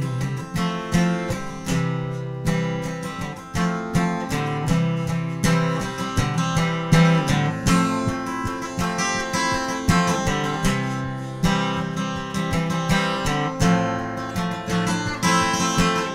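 Solo dreadnought acoustic guitar strummed in a steady rhythm, an instrumental break with no voice.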